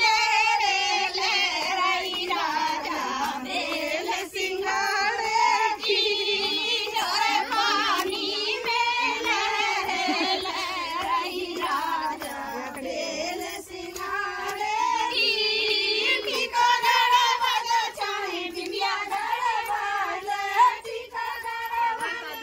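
A group of women singing a traditional ceremonial folk song together in high voices, the melody wavering continuously throughout.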